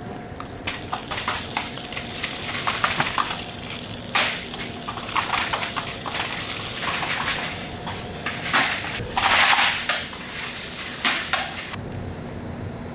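Snack-factory machinery running with a faint steady hum, while hard, light pieces clatter and click irregularly; a longer rattling burst comes about nine seconds in.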